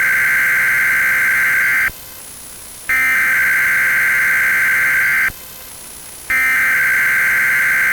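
Weather radio SAME digital alert header: a burst of rapid two-tone data sent three times, each about two and a half seconds long with about a second of radio hiss between. It codes the start of a severe thunderstorm watch broadcast.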